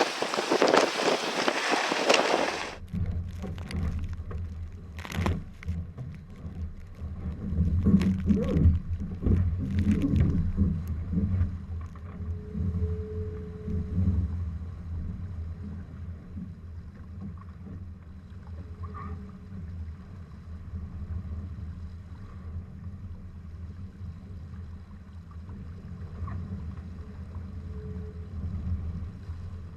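Wind and water noise on a sailing dinghy in strong wind: a loud hiss for the first couple of seconds, then it cuts to a muffled low rumble with a few knocks.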